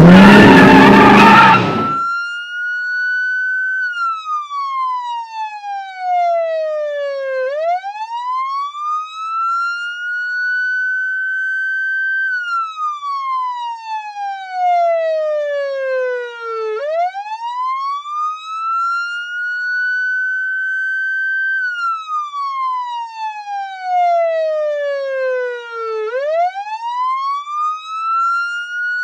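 Police car siren switching on with a loud rough burst that rises in pitch for about two seconds. It then wails slowly, falling and rising three times, each cycle taking about nine seconds.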